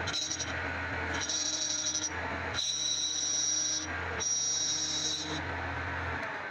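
Honda CD 100 single-cylinder engine running with a high-pitched whine that comes and goes four times, about a second each. This is the clutch-gear (garari) noise. The low engine hum stops near the end.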